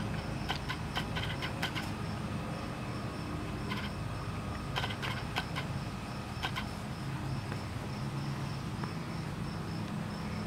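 A steady low engine hum in the background, with scattered light clicks and rustles.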